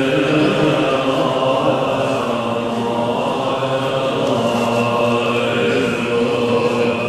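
Assembly of Tibetan Buddhist monks chanting prayers together, many voices holding long, steady notes.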